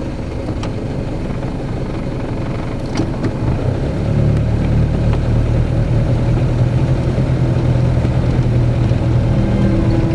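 A motor vehicle's engine running steadily with a low rumble, getting louder and stronger from about four seconds in.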